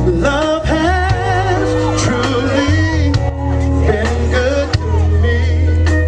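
A band plays a slow R&B ballad with heavy bass and drums, while a male voice sings long, wavering notes with vibrato over it.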